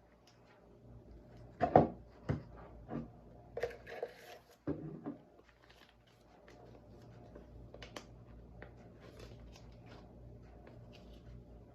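A few knocks and rustles of objects being handled and set down, the loudest about two seconds in, followed by a faint steady low hum.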